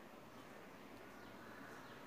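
Near silence: faint room tone between sentences of a lesson.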